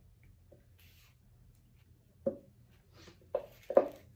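Glitter glue squeezed from a plastic squeeze bottle into a bowl, with three short sputters about two seconds in and near the end, the last the loudest.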